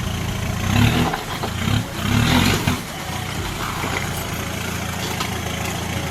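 Vehicle engine running steadily, with two louder surges, about a second in and again around two seconds, before it settles back to an even hum.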